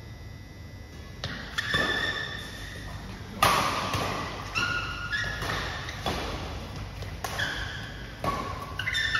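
Badminton rally: sharp racket strikes on the shuttlecock, starting about a second in and coming roughly once a second, mixed with short high squeaks of players' shoes on the court mat.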